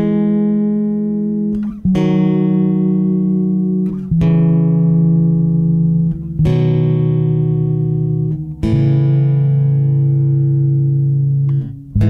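Background music: slow, sustained chords that change about every two seconds.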